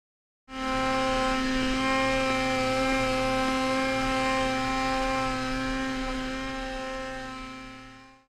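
Ski-Doo T3 mountain snowmobile's two-stroke engine running at a steady high pitch under throttle, the belt drive holding the revs constant, fading out near the end.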